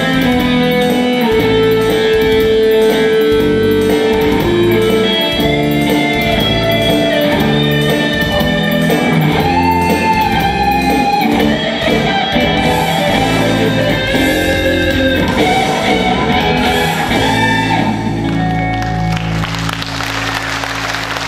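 Guitar-led band music playing the instrumental close of a song after its last sung chorus, with a melody line over sustained chords. Audience applause begins near the end as the music fades.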